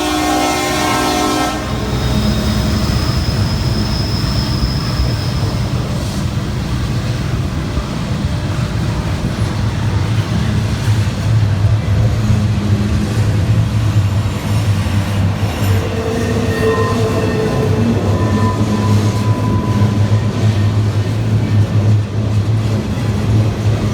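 A diesel locomotive horn sounds and cuts off about a second and a half in. Then the Norfolk Southern freight train passes climbing a grade, its SD70ACe and D9-44C diesel locomotives working under load, with a heavy low drone, wheel rumble and brief faint wheel squeal.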